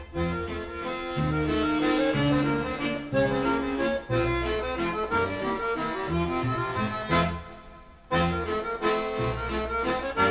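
Accordion music playing a traditional-style tune over a low bass line. It fades briefly just before the eight-second mark, then picks up again with a new phrase.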